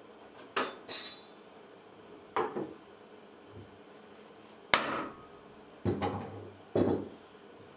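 A series of sharp wooden knocks and clunks, about seven, in small clusters: tools and wood being handled and struck at a wooden workbench.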